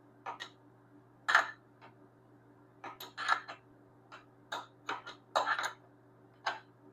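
A wrench on a motorcycle chain-adjuster nut making a dozen or so sharp metal clinks and clicks at irregular spacing as the nut is loosened, over a faint steady hum.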